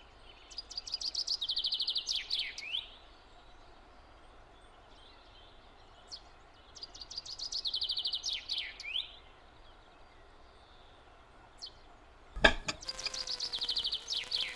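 A songbird singing: three similar song phrases several seconds apart, each a fast high trill ending in a few falling notes, over faint background noise. A single click sounds near the end.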